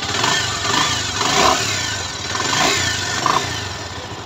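Freshly rebuilt Bajaj Pulsar single-cylinder engine running on test, revved up and down about three times. It has just been fitted with new clutch plates, timing chain and refitted head and rings.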